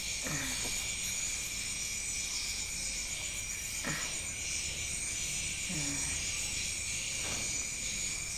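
Steady high-pitched chirring of insects with a fast pulse in it, and a few faint short sounds about half a second, four and six seconds in.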